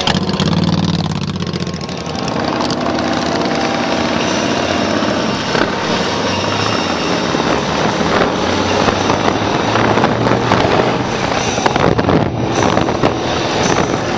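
Cruiser motorcycle engines pulling away from a stop and riding on, the engine note shifting as they accelerate in the first few seconds, with wind noise on the microphone building with speed.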